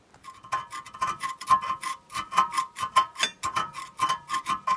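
A metal tool scraping rust out of the rear brake caliper bracket's pad slide areas in quick strokes, about four or five a second, starting about a quarter second in. The bracket gives a steady metallic ring under each stroke.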